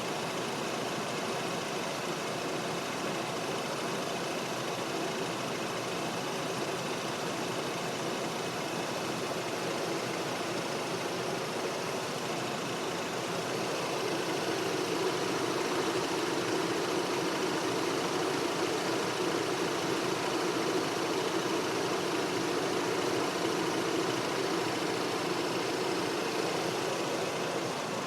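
Mazda RX-8's two-rotor Renesis rotary engine running steadily, getting a little louder about halfway through.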